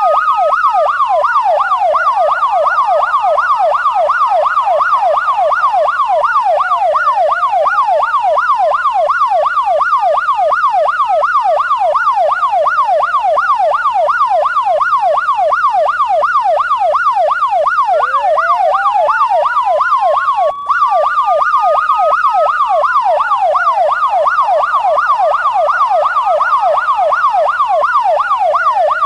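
Electronic siren sounding two tones at once: a fast yelp of about four sweeps a second over a slow wail that rises and falls every few seconds. The sound cuts out for an instant about twenty seconds in.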